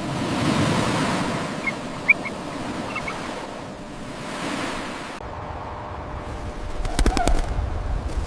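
A swelling rush of noise with a few short, high bird chirps about two seconds in. A little after five seconds it gives way to a quieter background, with a quick cluster of sharp clicks about seven seconds in.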